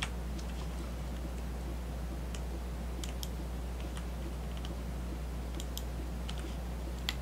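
Light, scattered clicks of a computer keyboard and mouse, a dozen or so at irregular intervals, over a steady low hum.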